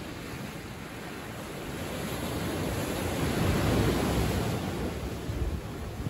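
Ocean waves breaking and washing up onto a sandy beach. The rush of surf swells to a peak about four seconds in, then eases off.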